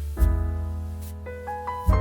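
Background piano music: a deep bass chord struck about a quarter-second in and again near the end, with a few higher notes stepping between them.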